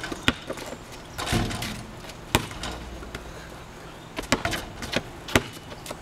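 Basketballs bouncing on a concrete court: single sharp smacks early on, then a quick run of four or five bounces between about four and five and a half seconds in.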